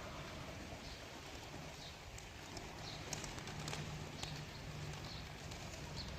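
Rain falling steadily with a few light tapping drips, and faint short high bird chirps about once a second over a low steady hum.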